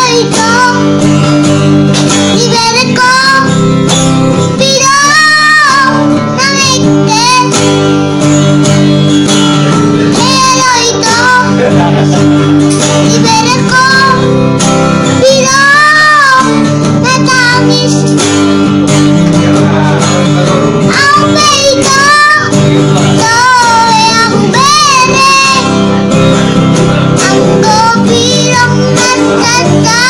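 A young boy singing a song with wavering held notes, accompanied by a man playing chords on an acoustic guitar.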